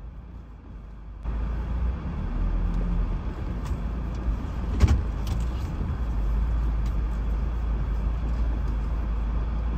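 Car road noise heard from inside the cabin: a steady low rumble with tyre hiss, which jumps louder about a second in. A short knock sounds about five seconds in.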